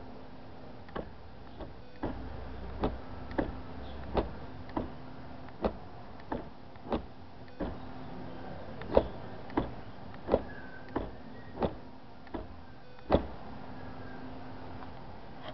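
A series of sharp clicks or knocks, about one every half second to a second and uneven in loudness, over a faint steady hum.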